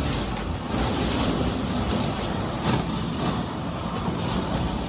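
Hurricane-force wind blowing hard and buffeting the microphone, with two sharp knocks, one about two and a half seconds in and one near the end.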